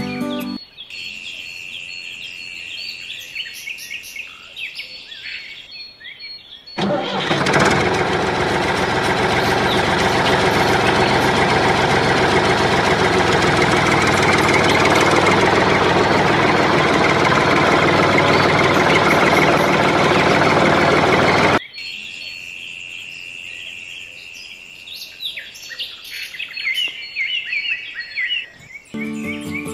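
An engine running steadily at one speed, coming in suddenly about seven seconds in and cutting off just as suddenly about fifteen seconds later. Bird chirps are heard before and after it.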